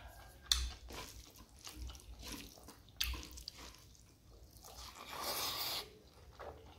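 Close-miked eating by hand: chewing with sharp mouth clicks and soft wet ticks. About five seconds in comes a short rustling hiss.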